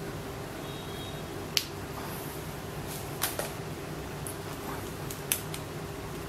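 Sharp little clicks of USB connectors being plugged in by hand: a USB-A-to-USB-C adapter pushed into a smartphone's port, and near the end the headset's USB plug seated in the adapter. A steady low hum lies underneath.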